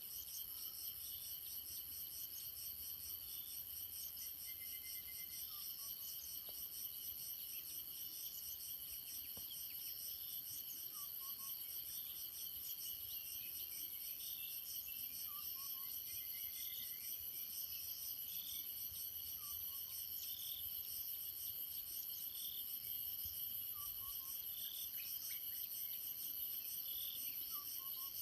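Chorus of crickets and other insects, several steady high-pitched trills layered together without a break. Over it, a short call repeats about every second and a half, and a lower, short falling call of two or three notes comes every few seconds.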